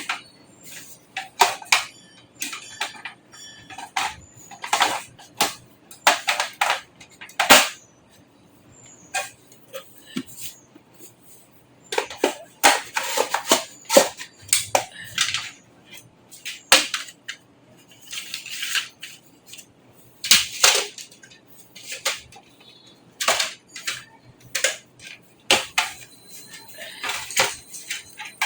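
Irregular clicks, knocks and short scrapes of hard metal and plastic parts being handled, as in work inside a desktop computer case.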